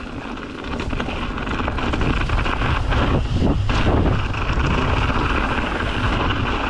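Mountain bike riding down a rough dirt trail: wind rushing over the microphone with a low rumble of tyres on the ground and a rapid clatter of small knocks.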